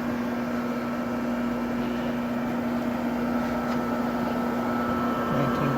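Rebuilt 50 hp electric motor running steadily on a test run after new bearings and a rewound stator, giving an even hum with a fainter high whine above it.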